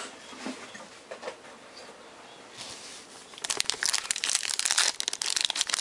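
Faint handling at first, then about three and a half seconds in a dense crinkling and tearing of a trading-card pack's wrapper as it is ripped open.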